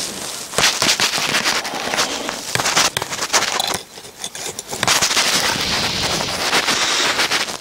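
Loud, dense crackling and rustling right at the microphone, handling noise, dropping away briefly a little past halfway.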